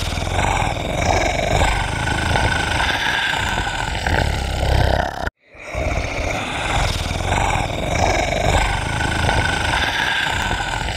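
A low, continuous animal-like roar that does not let up. The same recording of about seven seconds is looped: it cuts out briefly about five seconds in and starts over.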